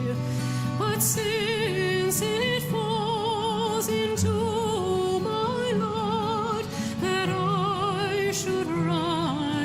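Background music: a singing voice with heavy vibrato holding long notes over a sustained accompaniment with a regular beat.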